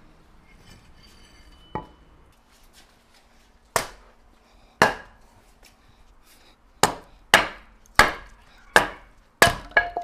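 Sharp chopping strikes, like a knife or cleaver coming down on a cutting board: a few spaced blows, then quicker ones about one or two a second in the second half.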